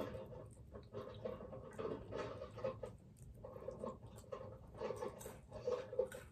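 Chewing and mouth sounds of someone eating, close to the microphone: irregular wet clicks and smacks.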